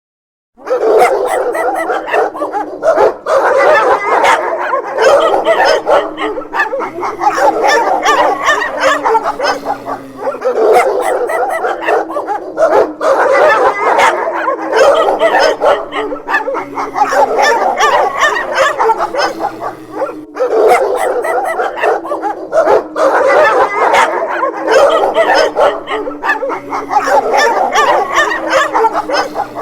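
Several dogs barking and yipping over one another, with long howls that slide slowly down in pitch. The sounds start about half a second in.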